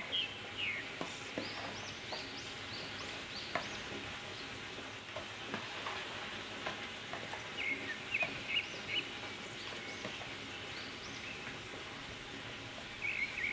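Hand and spoon mixing raw chicken pieces in a wet spice and soy-sauce marinade in a plastic bowl: soft squelching with scattered light clicks of the spoon. Birds chirp in the background a few times, near the start, about halfway through and near the end.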